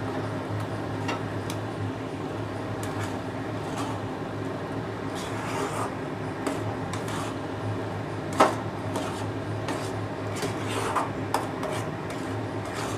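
Spatula scraping and stirring a thick soybean paste around a non-stick kadai as it fries, with light clicks against the pan and one sharper knock about eight seconds in. A steady low hum runs underneath.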